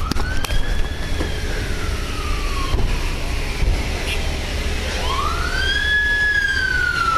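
Emergency vehicle siren wailing in slow cycles, each one rising over about a second and then falling away gradually. A new cycle begins about five seconds in. A steady low rumble runs underneath.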